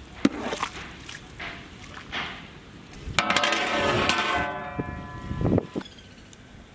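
A large aluminium lid clangs down onto a big cooking pot about three seconds in and rings for a couple of seconds, ending with a dull thud. Before it, a metal ladle knocks a few times against the pot.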